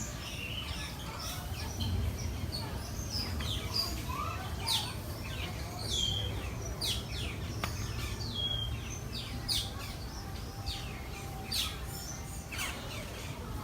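Several birds chirping and calling: many short, sharp chirps that sweep downward in pitch, coming irregularly throughout, over a low steady background rumble.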